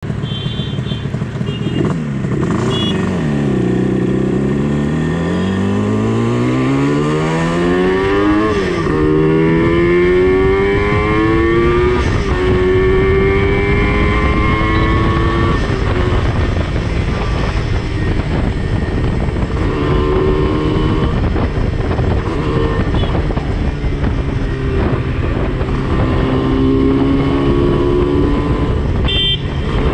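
Yamaha RD350's air-cooled two-stroke parallel twin, running through DG expansion chambers, accelerating through the gears: the engine note climbs in pitch from about two seconds in and drops sharply at gear changes about eight and a half and twelve seconds in, then holds steadier with small throttle changes. Wind rushes over the microphone throughout.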